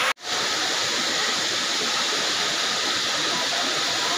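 Steady rushing of a cascading waterfall pouring over rock ledges into a pool. The sound cuts out for a moment just after the start, then comes straight back.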